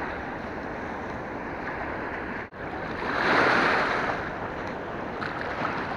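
Steady rush of fast water below a hydroelectric dam, swelling louder for about a second a little past the middle.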